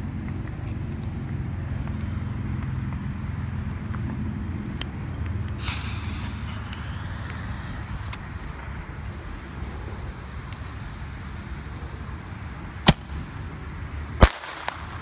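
Small 1-inch mini artillery firework shell being fired: a hissing rush about six seconds in, then two sharp bangs about a second and a half apart near the end, over a steady low rumble.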